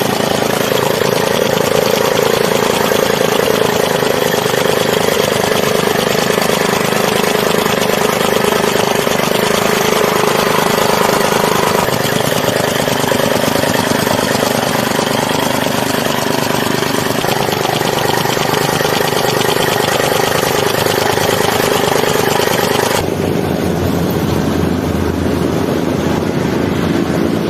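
Heavy construction machinery engines running steadily. The sound changes abruptly about a third of the way in and again near the end.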